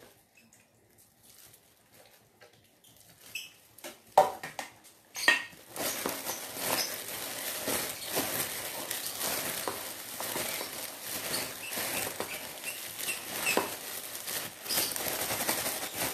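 A hand in a thin plastic food glove squeezing and mixing soft cooked rice in a pot, making continuous crinkling and squishing that starts about six seconds in. Before it come a couple of sharp knocks.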